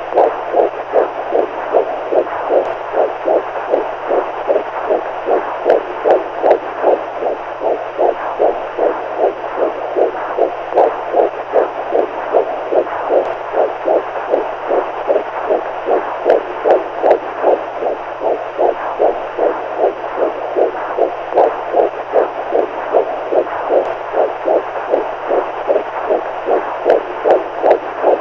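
Recorded heartbeat sound used as a baby sleep aid: a steady, even rhythm of beats repeating throughout, over a constant low hum and soft hiss.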